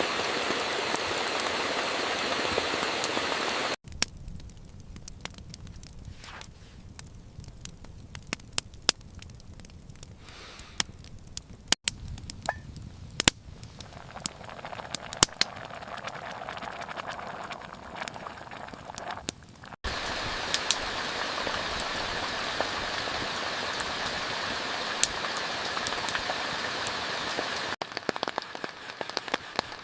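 Heavy rain, in a few spliced takes: steady loud downpour hiss alternating with quieter stretches of scattered drops tapping sharply on a surface. The sound changes abruptly at each cut.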